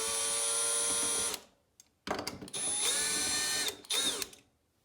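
Small electric power screwdriver running in two steady bursts of about two seconds each, backing out the screws on a TOMY coin mech's ratchet-wheel cover; the second run winds down near the end.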